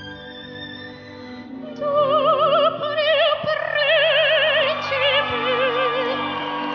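A young girl singing in operatic style with a wide, even vibrato over orchestral accompaniment; the accompaniment plays alone at first and the voice comes in about two seconds in.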